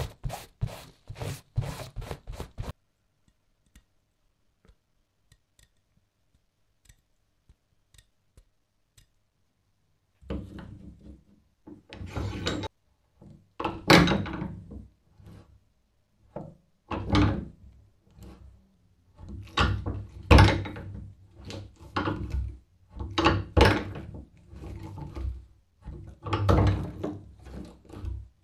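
A cloth rag rubs over an antique adjustable wrench for the first couple of seconds. From about ten seconds in comes a series of heavy thunks and knocks as the wrench, clamped in a bench vise, is forced by hand, and the wooden workbench resounds with each knock.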